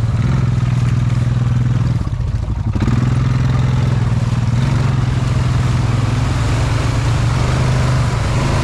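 Honda Foreman ATV engine running steadily under throttle, dropping briefly about two seconds in and then picking up again.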